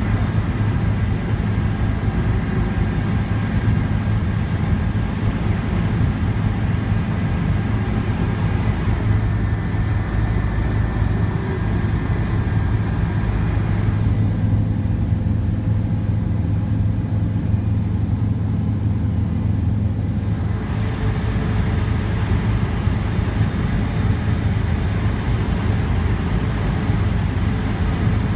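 Helicopter cabin noise: the rotor and engine drone steadily, heard from inside the cabin. The upper hiss turns duller for about six seconds midway, then comes back.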